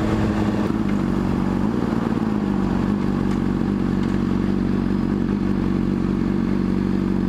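Motorcycle engine slowing as the bike rolls to a stop, its note dropping in the first second or two and then settling into a steady idle.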